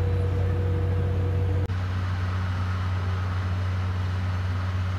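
Underfloor DMF15HZ-G diesel generator engine of a Suhafu 14 passenger car running at a steady speed: a constant low drone mixed with train running noise. Just under two seconds in the sound shifts abruptly and a steady higher tone drops out, while the low drone carries on.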